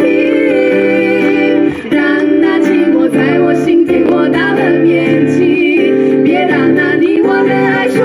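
Women singing with an acoustic guitar accompaniment, amplified through a stage PA: held, gliding vocal notes over steady guitar.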